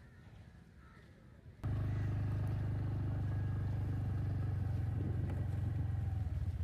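Faint background for about a second and a half, then a vehicle engine comes in abruptly and runs steadily at a low, even pitch.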